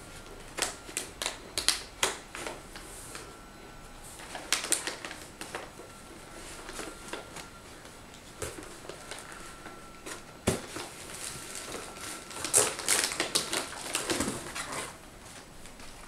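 Packaging rustled and crinkled inside a cardboard box as items are lifted out, in several bursts of crackles and clicks. There is one sharp knock about ten and a half seconds in.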